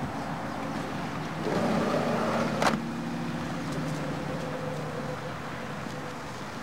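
Minivan engine running as the van pulls away and drives off, swelling about a second and a half in. A door slams shut once, about two and a half seconds in.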